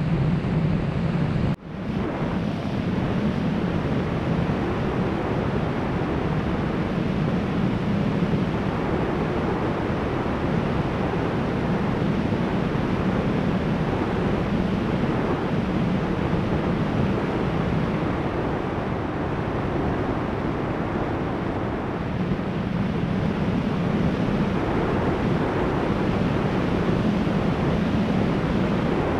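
Steady rush of wind and propeller noise picked up by the onboard camera of an electric RC plane in flight. The sound drops out sharply for a moment about two seconds in.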